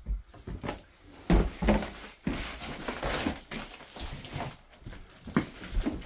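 Footsteps thudding and crunching on a wooden floor littered with boards and debris, in a small bare room, about a step a second with rustling in between.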